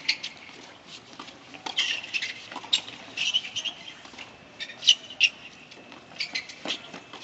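Doubles tennis rally on a hard court: tennis shoes squeaking in short, high clusters as players shift and stop, with a few sharp racket-on-ball hits among them.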